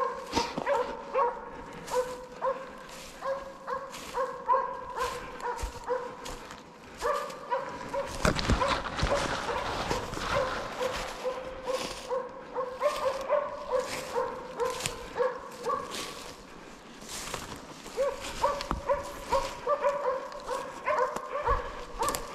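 A Slovak hound barking steadily at about two barks a second, the hound's voice on wild boar. There is a louder, noisier stretch in the middle.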